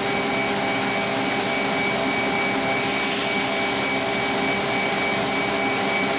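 Mazak FH-580/40 horizontal machining center's spindle running free at 12,000 RPM, its top speed, with no cut being made. A steady whine of several fixed tones over a broad hiss, unchanging in pitch.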